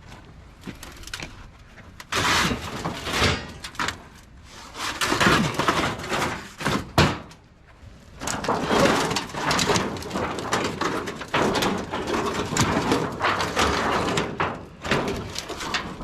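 Thin sheet-metal panels of an old tin shed scraping, rattling and banging as they are handled and pulled apart, with a sharp bang about seven seconds in.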